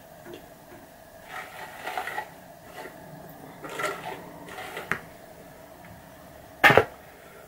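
A paddle hairbrush being drawn through long hair, with hands handling the hair: several soft rustling strokes and a small click, then a short loud knock near the end. A faint steady hum lies underneath.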